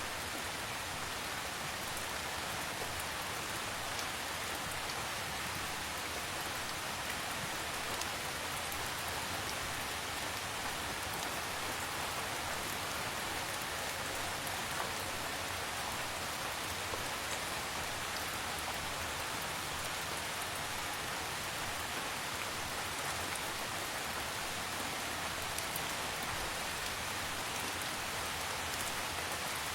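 Steady rain falling: an even, unbroken hiss with scattered faint drop ticks.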